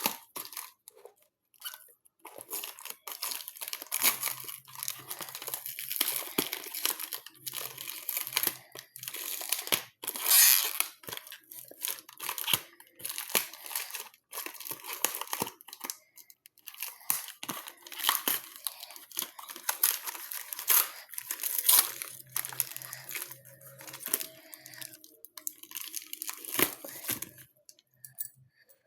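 Packaging being handled and torn open: irregular crackling and tearing of wrapping, stopping just before the end.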